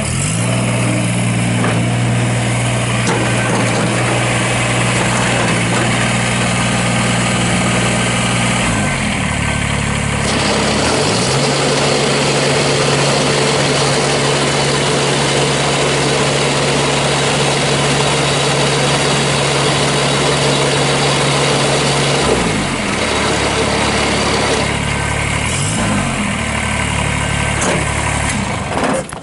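Kubota BX2380 sub-compact tractor's three-cylinder diesel running steadily with the snowblower attached. The engine speed rises about a third of the way through, holds, then dips briefly and climbs again near the end.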